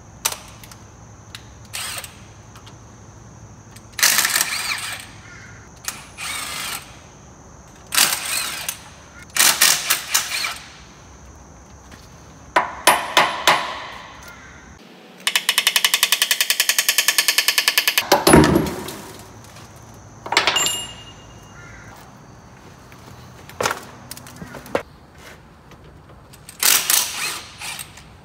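Cordless impact driver working loose bolts on a cast-iron machine, in repeated short rattling bursts, with one longer run of rapid hammering a little over halfway through. A few sharp metal knocks come between the bursts.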